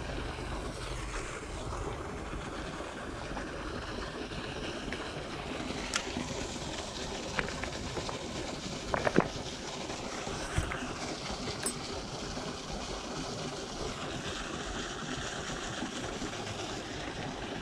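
Steady rushing of river water, with a few faint clicks and knocks around the middle, the loudest a quick double knock.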